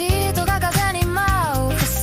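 Neo city pop / jazz fusion music: an instrumental passage with bass and a steady beat under a lead melody that slides up and down between notes.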